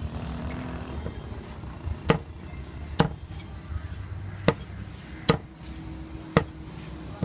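Heavy cleaver chopping dove pieces on a wooden chopping block: about six sharp chops, roughly a second apart.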